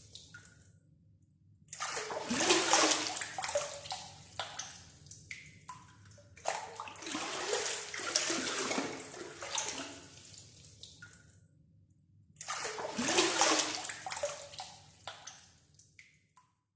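Water scooped with a hand dipper and poured out, splashing, three times over, each pour fading into dripping before the next.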